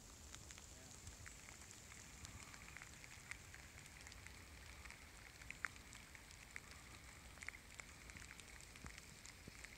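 Near silence: faint outdoor ambience, a low hiss with scattered light clicks and crackles.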